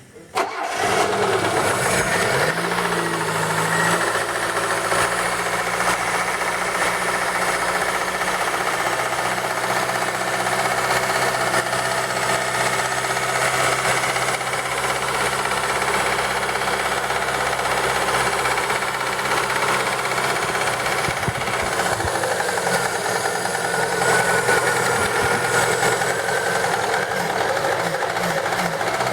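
The ZAZ Tavria's MeMZ-2471 1.1-litre fuel-injected four-cylinder engine cranks briefly and starts about half a second in, then idles with a steady, semi-ringing knock from the middle of the cylinder head. The mechanic suspects either the camshaft or a connecting rod's small end.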